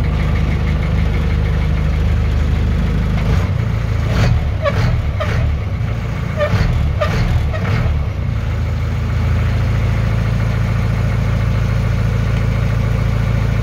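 Mahindra MM 500DI jeep's 2.5-litre inline four-cylinder diesel engine idling just after a start. About three seconds in, a few seconds of uneven, sharper sounds ride over the engine before it settles back to a steady idle.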